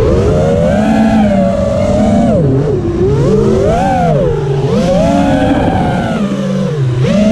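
FPV quadcopter's Brother Hobby Deadpool 2306 2450 kV brushless motors whining in flight, the pitch climbing and dropping over and over as the throttle is worked.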